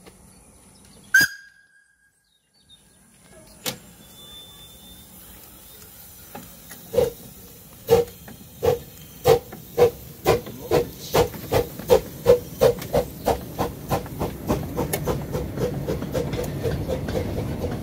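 A 15-inch gauge steam locomotive, no. 003 Moritz, starting away with its train. It gives a short sharp sound about a second in, then exhaust beats that begin slowly and quicken from about two to about four a second as it gathers speed, over a rising rumble as it draws near.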